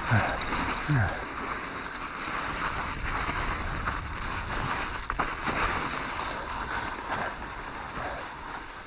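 Electric mountain bike rolling down a snowy forest trail: a steady hiss of the tyres through snow, with occasional knocks and rattles from the bike. Two short low sounds falling in pitch come within the first second.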